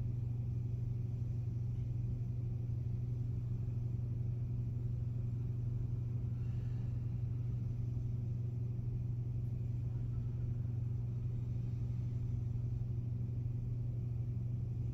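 A steady low hum that holds unchanged throughout, with no distinct events.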